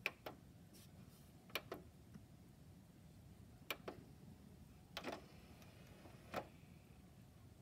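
Plastic push-buttons on a Panasonic RX-ED707 boombox clicking as they are pressed, about five presses, most as a quick double click. After about five seconds a faint whir comes in as the motorized top panel slides open over the cassette decks.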